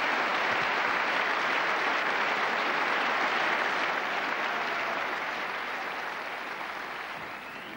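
Audience applauding, steady at first and then slowly dying away over the last few seconds.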